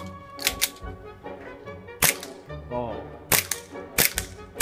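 WE Glock gas blowback airsoft pistol firing about seven sharp shots at an irregular pace, some in quick pairs, over background music.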